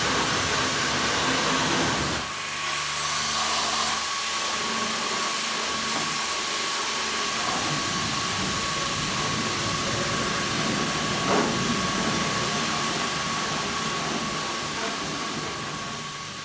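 Pressure washer jet spraying with a steady hiss and a thin steady tone through it, fading out near the end.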